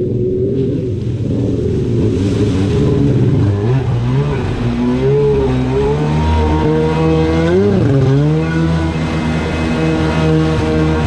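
Jet ski engine revving, its pitch rising and falling and then holding steady at speed, over the rush and splash of surf water.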